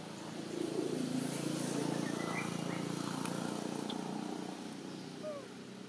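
A low, steady motor-like hum that swells over a couple of seconds and then fades, like an engine passing by, with a few short faint high chirps over it.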